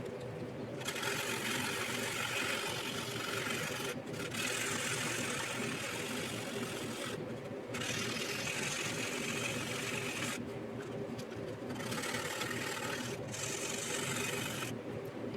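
400-grit sandpaper being rubbed back and forth over a plastic model's puttied seams, a scratchy rasp in spells of a few seconds with brief pauses between, over a faint steady hum.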